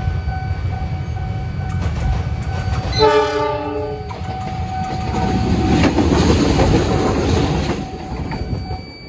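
KAI CC206 diesel-electric locomotive running light past a level crossing: a steady low engine rumble throughout, one short chord of the horn about three seconds in, then the loud rush of the locomotive going by from about five to nearly eight seconds, falling away near the end.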